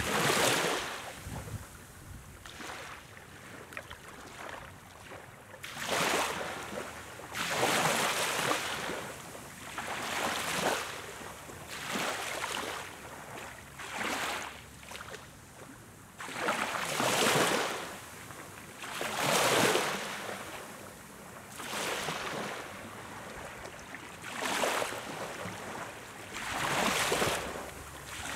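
Small waves lapping on a sandy beach, each wash of surf rising and fading about every two to three seconds.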